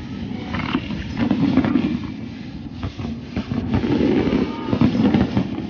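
Aerial firework shells bursting in quick succession: a continuous rumble of overlapping bangs with sharp cracks throughout.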